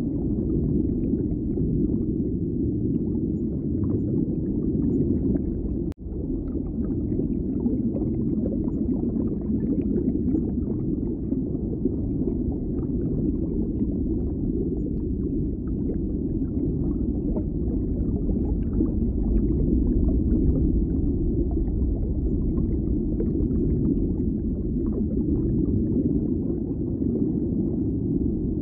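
A steady low rumbling din with no clear tones, broken by a brief dropout about six seconds in.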